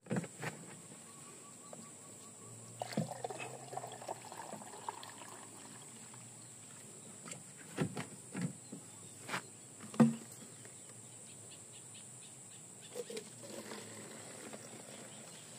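Palm sap (tuak) poured from a plastic jug into a plastic bottle, splashing and trickling, with scattered knocks and clicks from the plastic containers being handled. The loudest is a sharp knock about ten seconds in, and a steady high hiss runs underneath.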